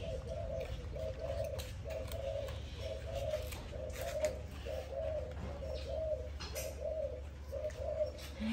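A dove cooing in a steady series of short, repeated phrases, about one every three-quarters of a second, with faint clicks and rustles over it.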